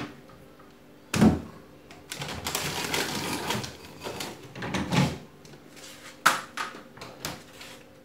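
Upright freezer being loaded by hand: a knock about a second in, then plastic freezer drawers and a bowl sliding and scraping, followed by several sharp clicks and knocks near the end.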